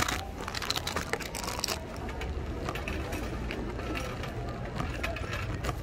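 Shopping cart rolling over a store floor, with a steady low rumble from its wheels and a clatter of small rattles and clicks from the wire basket, most in the first two seconds. A sharp knock right at the start as the cart-mounted camera is handled.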